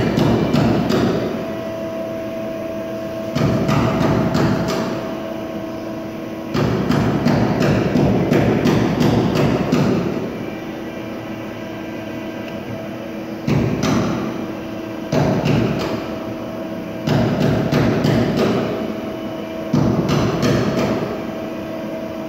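Norton surface grinder running, its wheel grinding a metal bar on the magnetic chuck as the table traverses back and forth. Loud grinding passes of one to three seconds come about every few seconds, with sharp clicks, between stretches of the steady hum of the wheel spindle.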